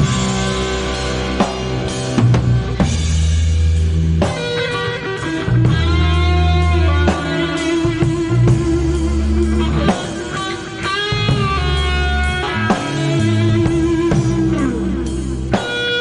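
Instrumental passage of a rock song: guitar playing melodic lines, some held notes with vibrato, over bass and a drum kit, with no vocals.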